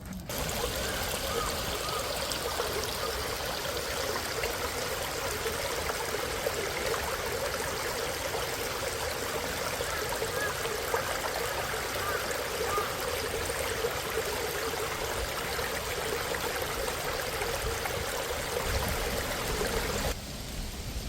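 A stream flowing steadily, an even rushing of running water that cuts in abruptly just after the start and cuts off about a second before the end.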